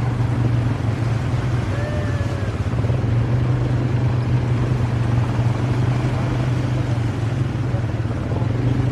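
A motor vehicle's engine running steadily, a constant low drone with rushing noise over it.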